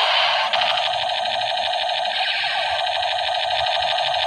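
Battery-powered toy AK-47's electronic firing sound: a continuous, fast machine-gun rattle from its small built-in speaker, held as the trigger stays pressed.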